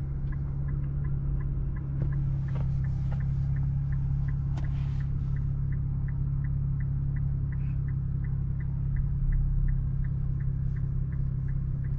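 Infiniti Q50S engine idling steadily, heard from inside the cabin, as a constant low drone. Over it runs an even, light ticking of about three to four clicks a second from the turn-signal indicator.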